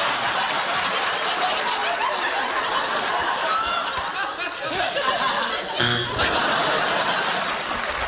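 Studio audience laughing, with a short buzzer sounding about six seconds in.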